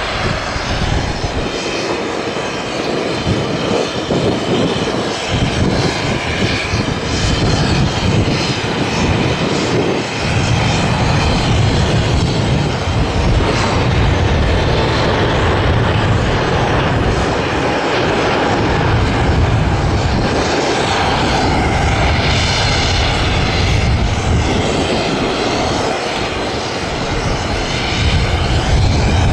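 Jet engines of a Boeing 737-300, CFM56-3 turbofans, running loudly and steadily, with a broad rushing noise whose higher tones shift slowly.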